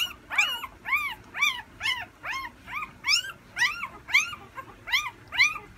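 A nine-day-old Corgi puppy crying over and over, about two short, high squeals a second, each rising then falling in pitch, as its mother licks its belly clean.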